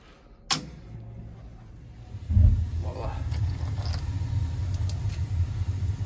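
Burnham atmospheric gas boiler's main burners lighting off from the pilot about two seconds in, then burning with a steady low rumble; a sharp click comes just before, about half a second in.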